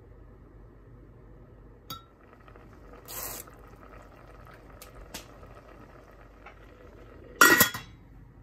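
A short spray of olive oil hisses about three seconds in, followed by a few light ticks. Near the end a stainless steel lid clanks down onto the steel pot, the loudest sound, ringing briefly.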